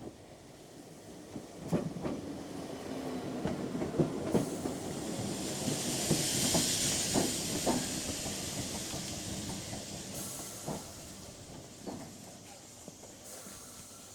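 British Rail Class 317 electric multiple unit pulling into a station. It grows louder, with a run of clacks as the wheels cross the rail joints and a loud hiss through the middle, then fades as the train slows to a stop.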